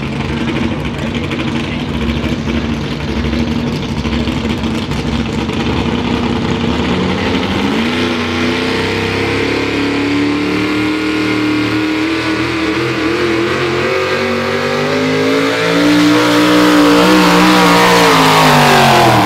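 A modified 4x4 pulling truck's engine running at the line, its revs climbing about eight seconds in. Near the end it runs louder and harder under load as the truck pulls the sled, and the pitch drops steeply at the very end.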